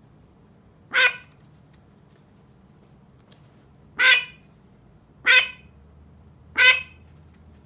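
Domestic duck quacking: four single loud, harsh quacks a second or more apart.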